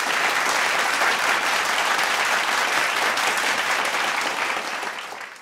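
Audience applauding steadily, a dense patter of many hands clapping, fading away near the end and cutting off.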